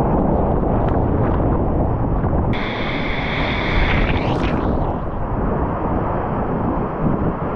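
Whitewater rapids rushing close around a kayak at high water: a steady, dense wash of water noise. About two and a half seconds in, a brighter hissing splash lasts for a couple of seconds.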